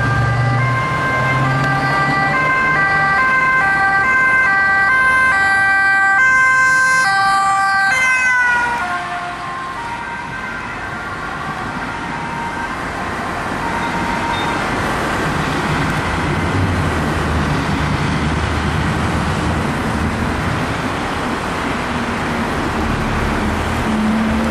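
Emergency vehicle two-tone sirens switching between high and low notes over a steady tone, ending in a falling glide about eight seconds in. After that, traffic noise and engines.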